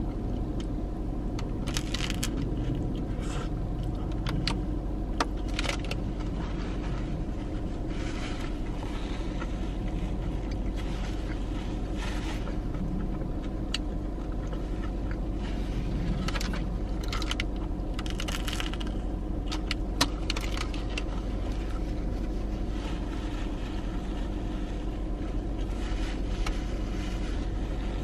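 Chewing and mouth sounds from eating a soft ciabatta sandwich, with scattered short clicks and paper rustles, over a steady hum in a parked car's cabin.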